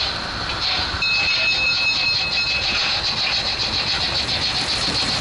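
Märklin model train running along its track, heard from a camera riding on a wagon: a steady, fast clatter of wheels and motor. A thin high squeal joins in from about one to two and a half seconds in.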